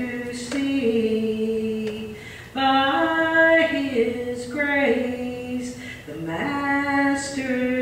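Gospel song sung slowly, a voice holding long drawn-out notes that step up and down in pitch, with short breaths between phrases.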